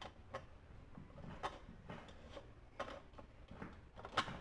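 Scattered faint plastic clicks and taps from a mini blender's blade cap being twisted and pressed onto its jar, the sharpest near the end; the motor is not running.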